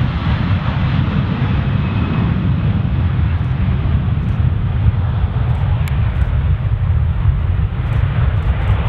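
Twin-engine jet airliner's engines at takeoff power on its takeoff roll: a loud, steady, deep rumble as it speeds down the runway.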